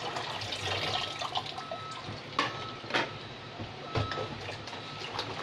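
Tap water running into a kitchen sink while dishes are rinsed under it, with three sharp knocks of plates about halfway through and near the end.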